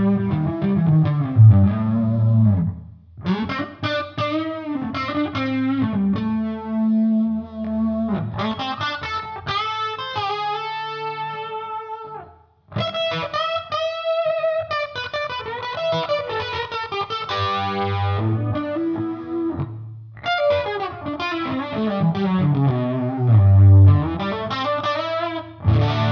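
Electric guitar strumming chords through the ML Sound Lab Amped Dual amp sim, a Mesa Boogie Dual Rectifier model, on its pushed channel 1 preset: a mildly driven, ambient rhythm sound. The playing breaks off briefly about three, twelve and twenty seconds in.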